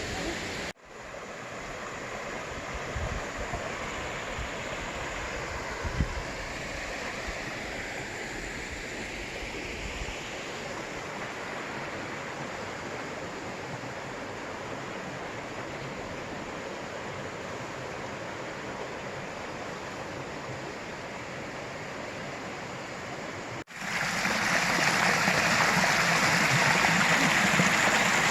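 Running water rushing steadily, like a stream over a fall. The sound drops out for an instant near the start and again near the end, and is louder after the second break.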